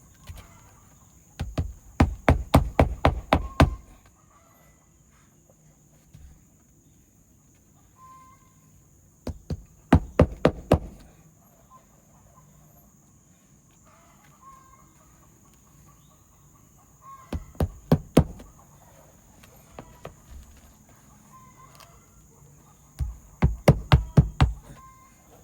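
Hammer driving roofing nails to refasten asphalt shingles: four bursts of rapid sharp strikes, several blows each, a few seconds apart.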